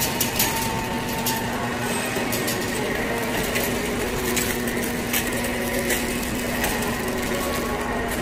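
Large store's ambience: a steady low hum with scattered light clicks and rustles.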